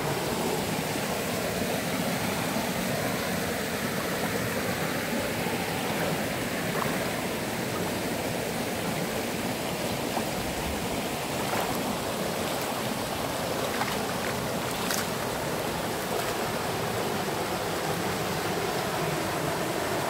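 Steady rush of a shallow woodland stream running over shale and a small rocky cascade.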